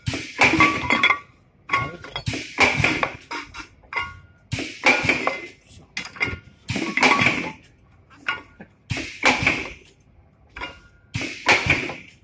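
Rotary flask bottom-cap press running its cycle: a cluster of metallic clanks and clinks with a short ring about every two seconds, six times, as the steel flask bodies are pressed one after another. Lighter clicks come between the strokes.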